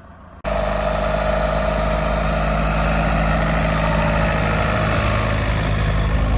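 A Tucker 1544 Sno-Cat's swapped-in Isuzu 4BD1T four-cylinder turbo-diesel engine running steadily, with a loud hiss over it. The sound cuts in abruptly about half a second in.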